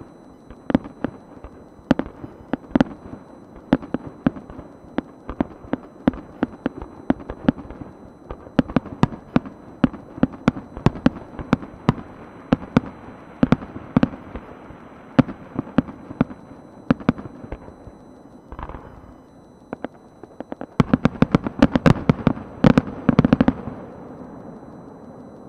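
Aerial firework shells bursting one after another, several bangs a second, building to a dense rapid volley near the end that then stops.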